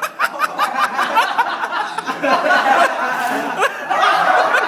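Several people laughing and snickering, with sharp clicks and pops scattered through.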